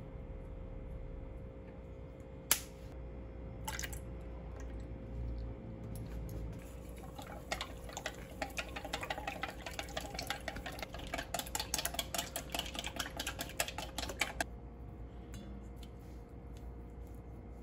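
Wooden chopsticks beating raw eggs in a stainless steel bowl: a rapid clatter of clicks against the metal that starts about seven seconds in and stops about seven seconds later. A single sharp knock comes about two and a half seconds in.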